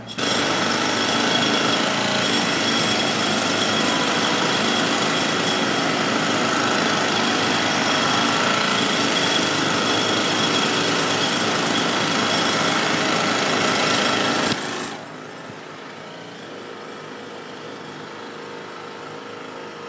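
Jackhammer running continuously and loud, then dropping suddenly about fifteen seconds in to a much quieter, steady noise.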